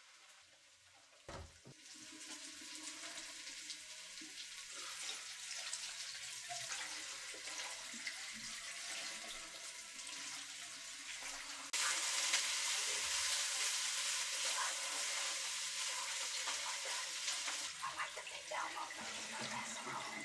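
Water running and splashing through a wire-mesh colander of boiled elbow macaroni into a sink. The flow steps up suddenly about twelve seconds in and eases back a few seconds later.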